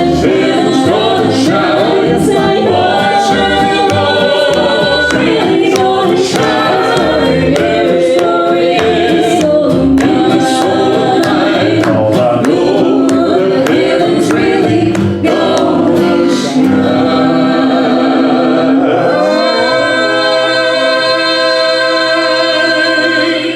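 Gospel vocal group singing in close multi-part harmony, with sharp rhythmic strokes under the voices, ending on one long held chord for the last few seconds.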